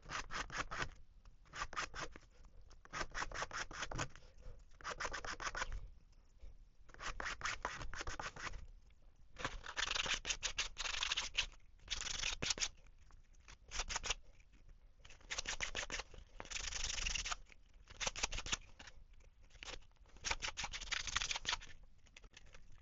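Sandpaper rubbing back and forth over a 3D-printed plastic crankbait body, in short bursts of quick strokes, several a second, with brief pauses between: rough sanding to take off the roughest edges.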